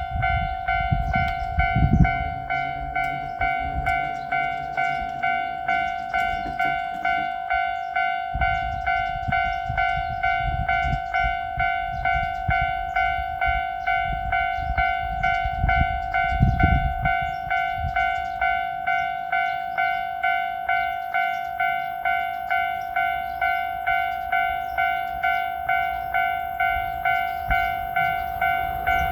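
Japanese railway level-crossing warning bell ringing its electronic "kan-kan" tone over and over at an even pace, the signal that a train is approaching. A low rumble runs underneath and swells about two seconds in and again a little past halfway.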